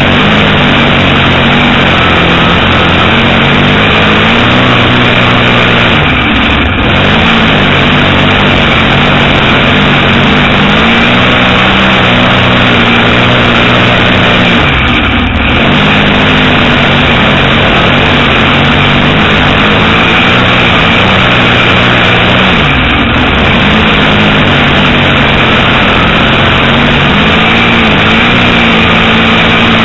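Dirt modified race car's V8 engine at racing speed, heard loud from inside the cockpit. It is held at high revs, and about every seven to eight seconds the pitch sags briefly and climbs back as the driver lifts off and gets back on the throttle through each turn.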